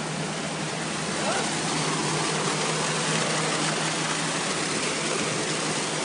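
Muddy water and clay slurry rushing steadily through a gold washing plant's sluice channel, over a machine's steady low hum.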